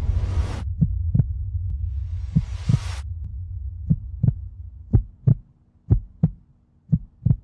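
Heartbeat sound effect: pairs of short, low thumps, each pair about a second apart and coming a little faster toward the end, over a low hum that fades out. Two brief rushing hisses rise and cut off sharply in the first three seconds.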